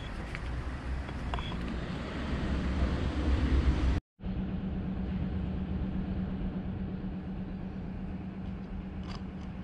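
Steady low rumble of an engine running in the background. It cuts to silence for a moment about four seconds in, then carries on as a steady low hum.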